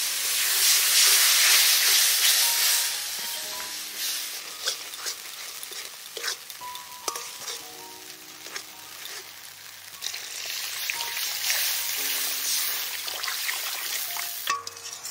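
Spice paste frying in a hot metal karai sizzles loudly as water is poured onto it, while a steel spatula scrapes and clicks against the pan as it stirs. The sizzle dies down and then swells again near the end as more water goes in.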